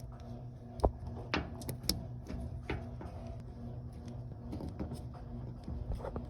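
Small, irregular clicks and handling noises of wire terminals being worked into the pins of a PCM connector, over a steady low hum.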